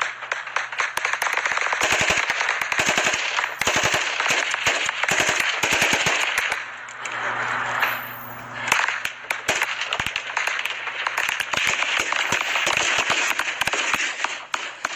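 Kalashnikov-pattern assault rifles firing in rapid bursts, shots overlapping from several guns. The firing thins out briefly about seven seconds in, then picks up again.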